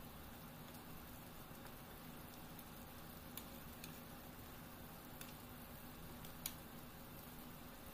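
Tomato sauce faintly sizzling in a frying pan as spaghetti and chicken meatballs are stirred with a wooden spatula. A few short clicks of the spatula against the pan are heard, the sharpest about six and a half seconds in.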